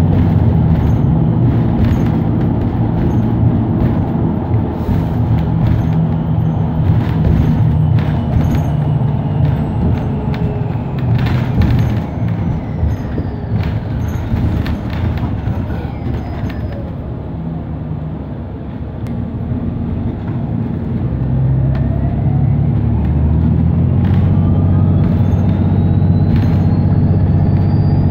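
Inside a New Flyer Xcelsior XDE60 diesel-electric hybrid articulated bus under way: a steady low drone from the drivetrain with scattered rattles and clicks. A thin electric whine falls in pitch over the first half, the sound eases near the middle, and a whine then climbs steadily in pitch as the bus speeds up again.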